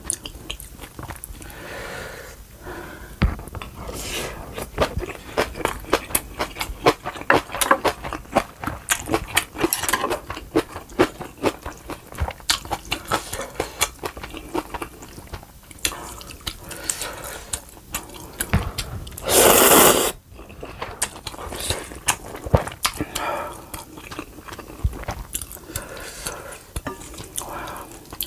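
Close-miked eating of kimchi, rice and ramyeon: chewing and crunching with many wet mouth clicks. About two-thirds of the way in there is a loud noisy rush of about a second.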